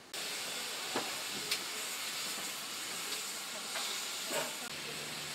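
GWR 57xx pannier tank steam locomotive standing in steam with a steady hiss of escaping steam, which starts abruptly. A few light knocks and clanks come about one, one and a half and four seconds in.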